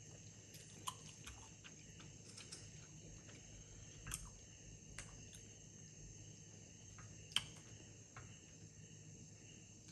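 Quiet eating sounds over a faint steady hiss: a handful of small sharp clicks from chewing and chopsticks, the loudest about seven seconds in.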